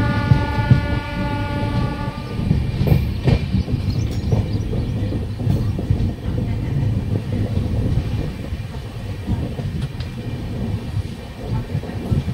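Passenger train rolling slowly just after pulling out: steady rumble of the coach with scattered wheel clicks. A train horn sounds at the start and ends about two seconds in.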